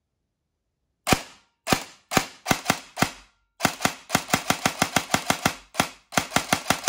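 Cyma Platinum 097B airsoft electric gun on a 7.4 V LiPo battery, dry-firing single shots on semi-auto. A few spaced shots start about a second in. Then comes a quick run of trigger pulls at about four to five a second, showing a fast trigger reset.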